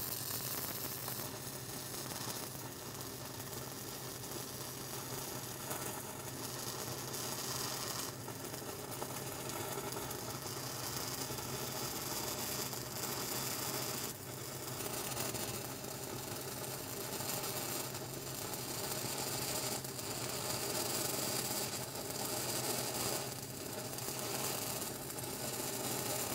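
Stick-welding arc of a 6010 electrode crackling steadily as it runs the root pass of an open-butt joint.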